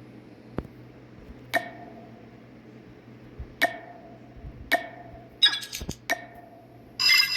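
Video game menu interface sounds: a series of short clicks, each with a brief ringing chime, a few seconds apart, with a quick flurry of clicks near the end, then a busier chiming effect starting just before the end over a steady low hum.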